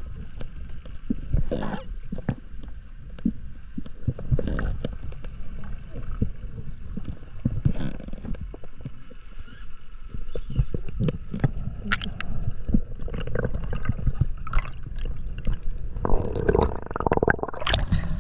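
Muffled underwater sound picked up through an action camera's housing: a low rumble and gurgling with scattered clicks and knocks, and louder sloshing water near the end as the camera comes up at the surface.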